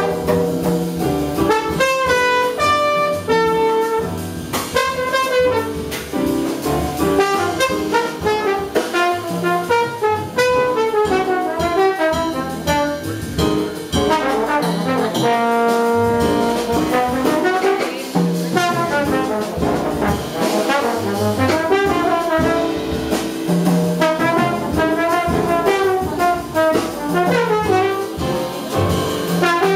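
Live small-group jazz: a trombone plays a running melodic line over piano, upright bass and drums.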